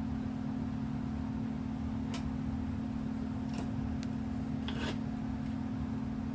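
Steady low mechanical hum, with a few faint clicks and scrapes of electrical wires being twisted together in a splice.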